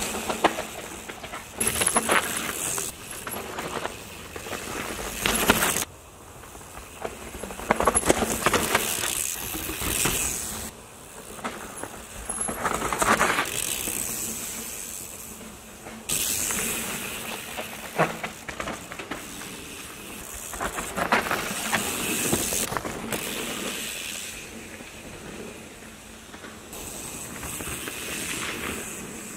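Mountain bike ridden fast down a dirt woodland trail past the camera, again and again: tyres tearing through dirt and loose leaf litter, each pass swelling as the rider comes near and fading as he goes, with knocks and rattles over bumps. The sound breaks off suddenly several times.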